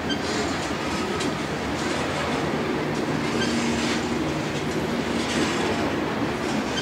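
Loaded coal hopper cars of a freight train rolling by: a steady rumble of steel wheels on rail with clicking at the rail joints and a faint wavering wheel squeal.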